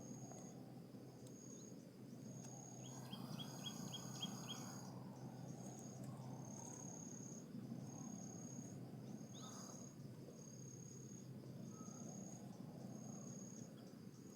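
Faint outdoor ambience with an insect chirping steadily, a short high pulse repeating about once a second. Around a third of the way in, a quick run of about seven short, sharp notes sounds briefly.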